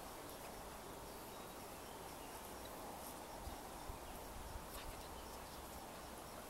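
Faint outdoor ambience: a steady hiss with faint insect sounds and a few light ticks.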